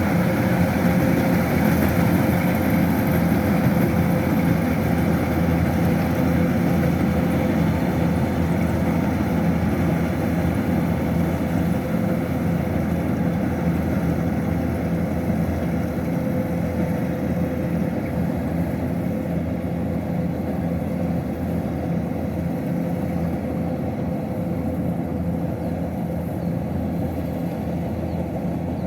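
Kubota DC-105X rice combine harvester's diesel engine running steadily, with a thin steady whine over it, slowly growing fainter.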